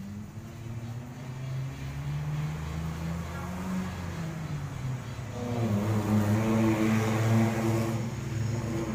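Motor vehicle engines running on the road, their pitch shifting. About five and a half seconds in, a heavier engine grows louder as it passes, loudest a second or two later.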